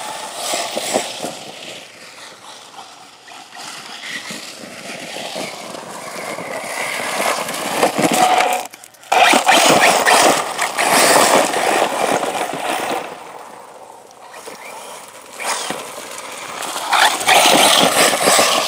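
Arrma Typhon 6S electric RC buggy being driven hard over dirt and dry leaves: motor whine rising and falling with the throttle, with tires scraping and kicking up dirt. The sound drops away suddenly for a moment about halfway through, then comes back loud.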